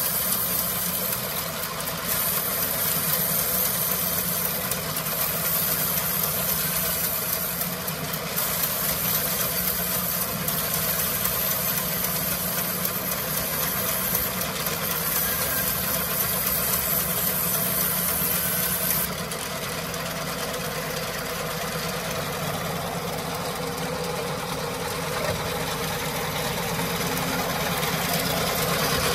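Large sawmill band saw running and ripping a wooden beam lengthwise: a steady machine drone with a hiss from the blade in the wood. About two-thirds of the way through, the hiss drops away and the sound gets a little quieter.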